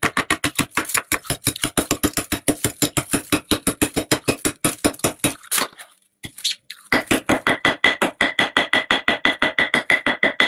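Thick freezer frost being scraped in quick, rhythmic strokes, about six a second. After a short pause near the middle, the scraping resumes with a steady high squeak running through the strokes.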